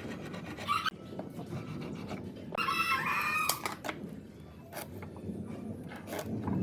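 A rooster crowing once, a call of about a second starting a little over two seconds in, with a few sharp knocks after it.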